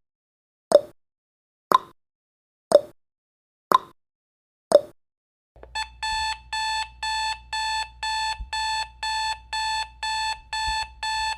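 Countdown timer sound effect: sharp ticks once a second, then, a little over halfway in, as the count reaches zero, an alarm-clock beeping starts, about two high beeps a second.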